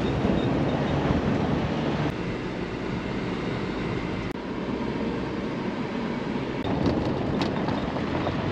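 Chevy Colorado ZR2 pickup truck driving: steady engine and tyre noise, with a few small knocks or rattles about two-thirds of the way through.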